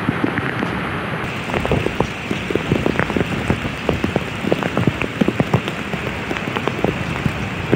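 Heavy rain falling steadily, with many sharp drop impacts close by.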